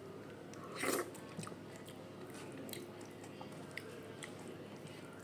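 A person chewing a mouthful of rice and fried vegetables, with small wet mouth clicks and one louder noisy sound about a second in.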